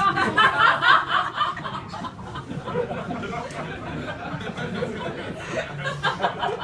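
Small audience laughing and chuckling, loudest in the first second, then fading to scattered chuckles and murmuring.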